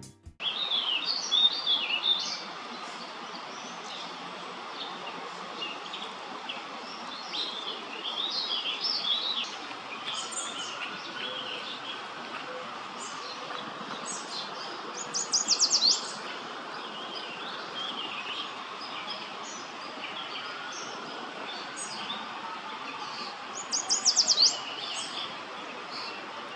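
Several small songbirds chirping and singing, with two loud, rapid trills at about 15 and 24 seconds, over a steady outdoor background noise.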